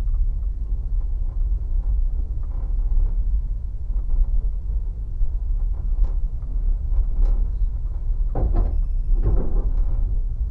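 Steady low rumble of passenger trains rolling, heard from inside a carriage, with scattered wheel knocks. A louder clatter with a thin high squeal comes a little after eight seconds.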